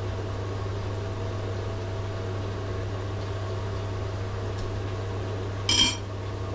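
A steady appliance hum, with one short ringing clink near the end as a metal utensil knocks the ceramic bowl while avocado is scooped out.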